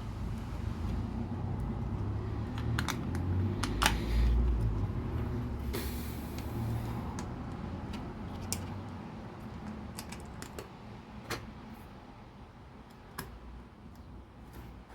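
LEGO pieces being handled and snapped together: scattered small plastic clicks over low handling noise, with a brief rustle about six seconds in.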